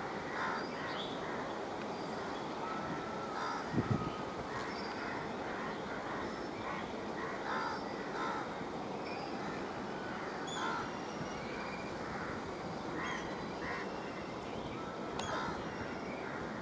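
Crows cawing repeatedly over a steady background hum, with a brief low double thump about four seconds in.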